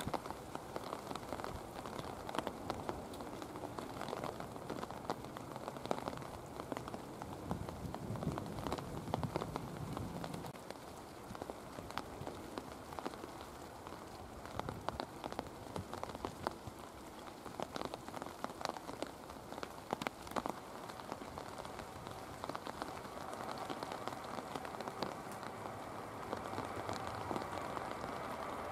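Steady rain with many sharp raindrop ticks close to the microphone. Near the end, the whine of a Ryanair Boeing 737-800's jet engines at takeoff power comes up under the rain and grows louder.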